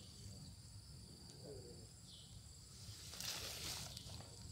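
Insects keeping up a steady, high-pitched drone of several even tones over a low rumble, with a short burst of rustling noise about three seconds in.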